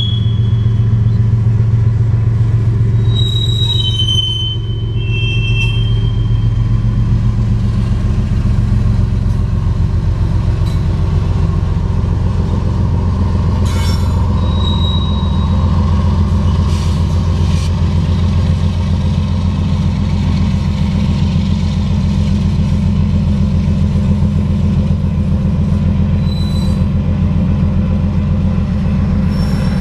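Freight train of loaded coke hoppers rolling past with a steady low rumble and hum, and a few short, high wheel squeals.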